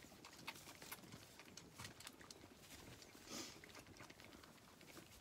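Faint shuffling, rustling and small clicks from Zwartbles lambs moving in straw bedding as they suckle from bottles, with one brief louder rustle about three and a half seconds in.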